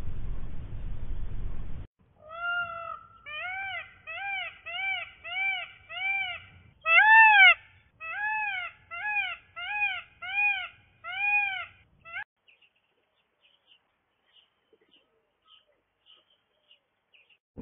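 An animal's call repeated about twice a second, some seventeen short notes, each rising and then falling in pitch, the loudest near the middle. It comes after about two seconds of steady background noise that stops suddenly, and gives way to near silence with a few faint ticks.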